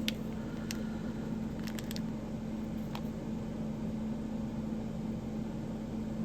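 A few light clicks of small ceramic balls and metal slider parts being handled, over a steady background hum.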